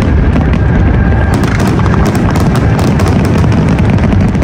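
Fireworks bursting in rapid succession: a continuous rumble of low booms with sharp crackling pops over it.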